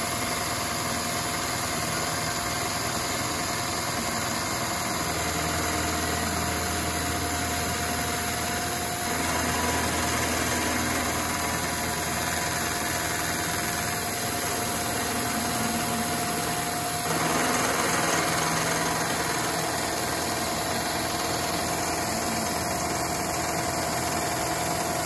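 Carbide-insert face mill (APKT inserts) cutting a flat on a heat-treated 4140 steel shaft on a Bridgeport-type mill: a steady grinding cut noise with a constant whine. The cut gets slightly louder about nine seconds in and again about seventeen seconds in.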